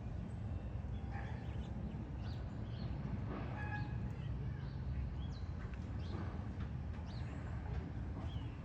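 Scattered short, high chirps of small birds over a steady low rumble.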